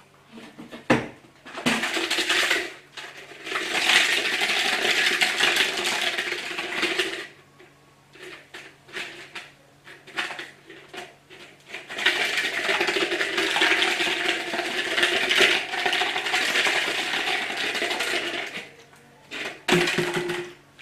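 A plastic water bottle shaken hard, making two long bouts of loud rattling, each about five or six seconds, with scattered short clatters between them and a sharp knock near the end.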